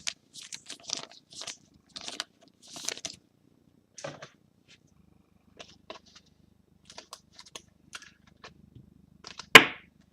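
Trading cards being handled and slid against one another: a string of short, scratchy swishes, with one sharp, louder snap about nine and a half seconds in.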